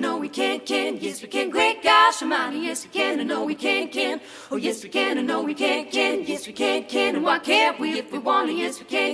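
Group of voices singing a cappella in short, rhythmic sung syllables, with no bass or drums under them.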